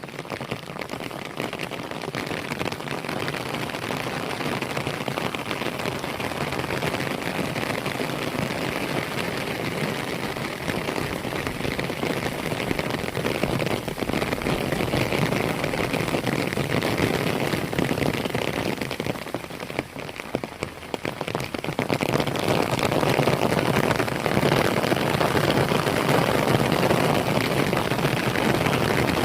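Steady, dense pattering of falling water, dipping briefly about twenty seconds in and then growing louder.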